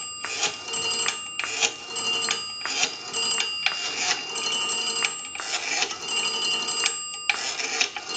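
Rotary dial of a 233G three-slot payphone being pulled round and released digit after digit, each return a quick run of clicks with short pauses between the digits.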